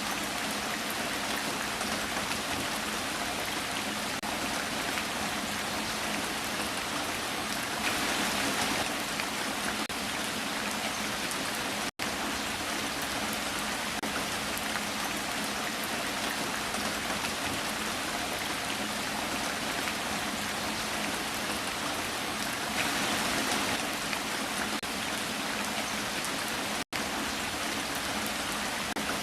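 Heavy rain falling steadily, an even hiss of many drops that swells slightly twice and cuts out for an instant twice.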